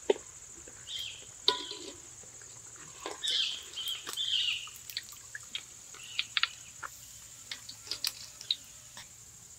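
Fish deep-frying in hot oil in a large aluminium wok, the oil bubbling and sizzling, with several sharp clicks and scrapes of a wire strainer against the pan and basket as the fried pieces are lifted out.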